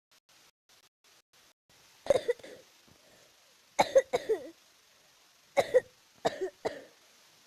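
Repeated coughing in four short fits of two or three coughs each, the first about two seconds in.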